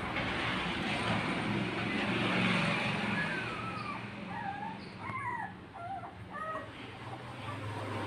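Newborn puppies giving a string of short, high squeaks and whimpers, bending up and down in pitch, from about halfway through. Beneath them runs a steady rushing noise with a low hum that swells over the first few seconds and then eases.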